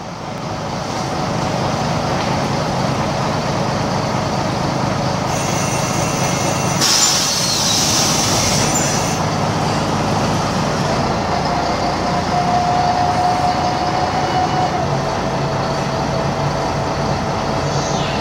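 Onboard sound of an Ikarus 260.46 city bus with its Rába D10 six-cylinder diesel running, fading in at the start. A loud hiss of compressed air sounds about five to nine seconds in, and a thin steady whine comes in about eleven seconds in.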